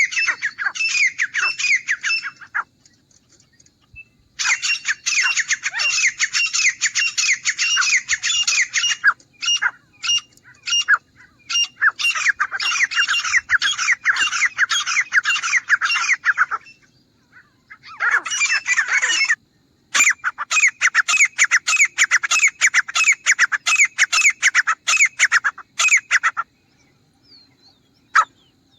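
Grey francolin calling: rapid series of falling notes, about four a second, in bouts of a few seconds separated by short pauses.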